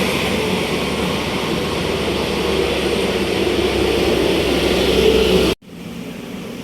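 Large bus engine running close by as it passes, a loud steady rush with a low hum. The sound breaks off abruptly about five and a half seconds in, and a quieter stretch of traffic noise follows.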